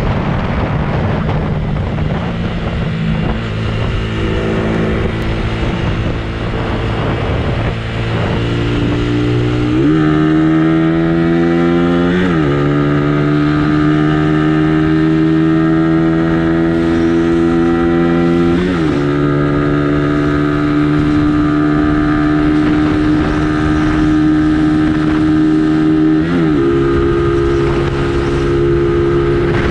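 Suzuki Raider R150 motorcycle engine pulling hard under acceleration. Its pitch climbs steadily in each gear and drops sharply at each upshift, three times in the second half.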